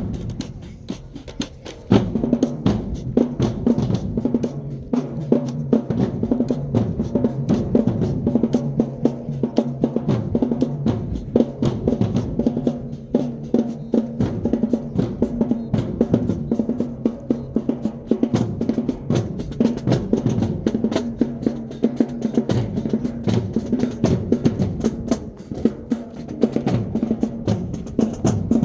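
High school marching band playing: a fast drumline of snare drums, drum rolls and bass drum hits over low held notes. It is quieter for about the first two seconds, then comes in loud.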